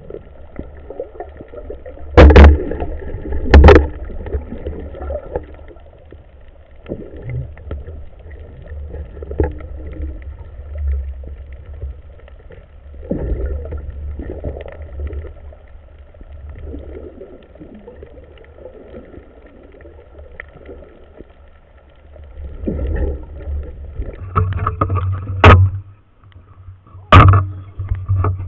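Muffled water sloshing and bubbling heard through an action camera's waterproof housing as a diver swims underwater. Two sharp knocks come a little over a second apart about two seconds in, and two more near the end.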